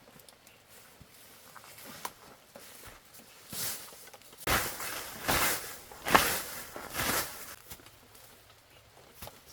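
Footsteps: a run of about five noisy steps a little under a second apart, loudest in the middle.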